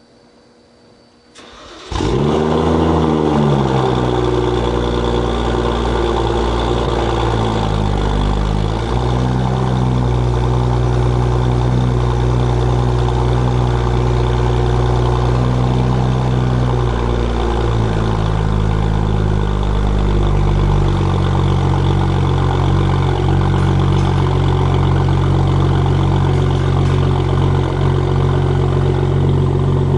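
BMW F10 535i's turbocharged straight-six starting about two seconds in, through a Meisterschaft GTS/GTC exhaust with its GTC valves open: a brief crank and a rev flare that falls away, then a steady cold-start fast idle that steps down to a lower idle later on.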